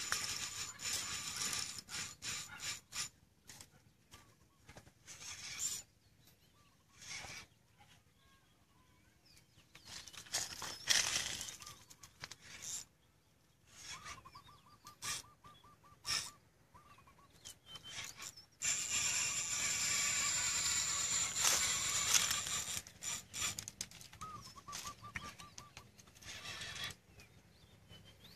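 Spinning reel in a fight with a hooked arapaima: the drag buzzing as the fish pulls line off. It is loudest in a stretch of about three and a half seconds past the middle and starts suddenly there. In between come irregular bursts of handling rustle and two short runs of fast even ticks.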